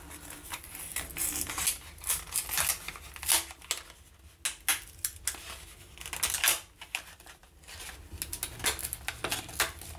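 Clear plastic blister pack being pried and peeled off its cardboard backing card by hand, the stiff plastic crinkling and crackling in irregular snaps. The plastic comes away from the card easily.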